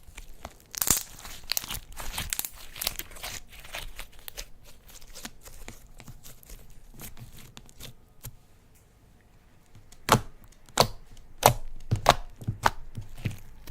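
Slime being squeezed and stretched by hand, making dense crackling and clicking, then a handful of loud sharp pops near the end.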